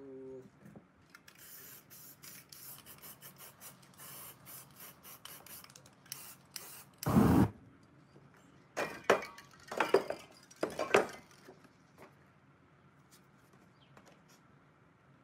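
Aerosol spray paint can hissing in a run of short bursts, followed about seven seconds in by a loud thump and then a few shorter clatters.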